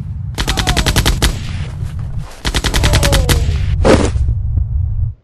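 Two bursts of automatic gunfire, about ten rounds a second, each lasting a second or two, with a heavier single shot near the end. A steady low rumble runs underneath, and all of it cuts off abruptly.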